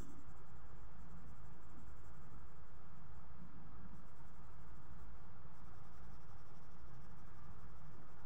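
Green coloured pencil scratching on paper as it shades in colour, over a steady low background hum.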